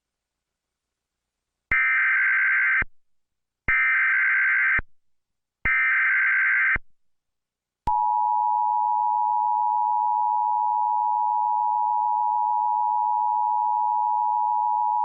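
Emergency Alert System tones: three one-second bursts of SAME digital header data, each about two seconds after the last. About eight seconds in they give way to the steady two-tone EAS attention signal (853 and 960 Hz), held to the end. The attention signal marks the start of an emergency alert.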